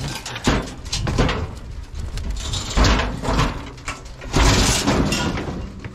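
Thumps, knocks and scraping from bulky household items being moved and set down, in irregular bursts with the loudest stretch near the end.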